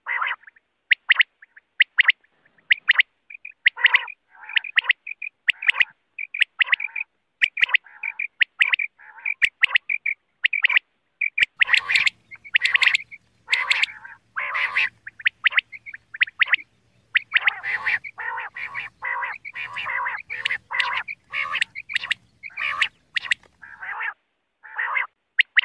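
Common quail calling: a long series of short, sharp repeated call notes, coming faster and more crowded from about halfway through, with a faint low hum under them.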